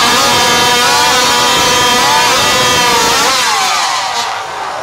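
Two-stroke chainsaw of up to 81cc with an expansion pipe, screaming at full throttle through a timed competition cut, its pitch dipping briefly as the chain loads in the wood. Near the end the pitch falls and the sound fades as the saw comes off the cut.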